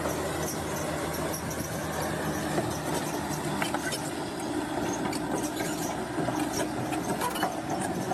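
Bulldozer diesel engine running steadily, with a few short metallic clicks or knocks about halfway through and again near the end.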